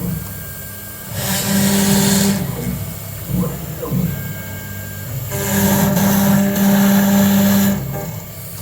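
CNC router (AX-1325) running, with a steady low hum under two louder passes of cutting or travel noise, one short and one about two and a half seconds long, each starting and stopping abruptly.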